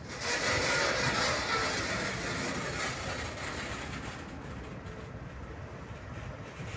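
Freight train gondola cars rolling past close by, steel wheels rumbling and clattering on the rails. Loudest in the first couple of seconds, then easing slightly.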